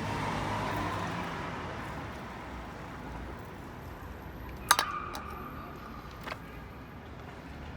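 A sharp metallic clink with a short ringing tail a little past halfway, then a lighter tap about a second and a half later, as small metal brake parts or tools are handled; a steady background hum of distant traffic runs underneath.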